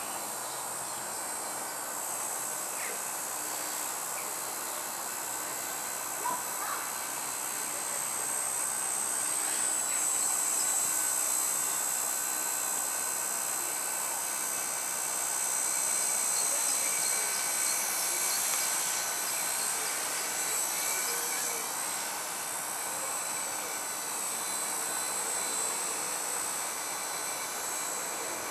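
Blade mCP X micro collective-pitch RC helicopter in flight, its electric motors and rotor blades making a steady high-pitched whine that steps up slightly in pitch about ten seconds in and wavers as it manoeuvres.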